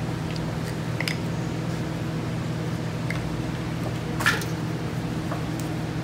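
Cooked lobster shell being cracked and pulled apart by hand, wet squishing with a couple of short sharp cracks, the loudest about four seconds in, over a steady background hum.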